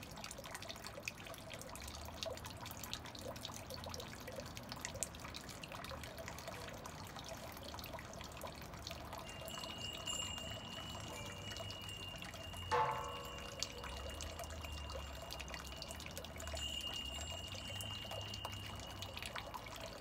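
A small stream trickling and dripping. A thin steady high tone joins about halfway through, and a brief louder pitched sound stands out near the middle.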